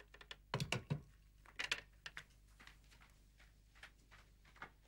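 A telephone handset being put down with a couple of clunks, then scattered soft footsteps along a hallway.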